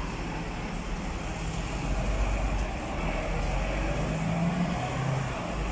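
Street traffic: a double-decker bus's engine running close by, with cars passing, a steady low rumble and hum.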